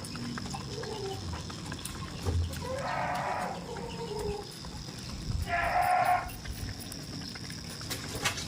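Goats bleating: two separate calls, one about three seconds in and a louder one around six seconds.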